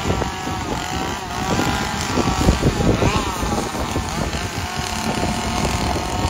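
Chainsaw engines running and revving, their pitch wavering up and down, with wind rumbling on the microphone.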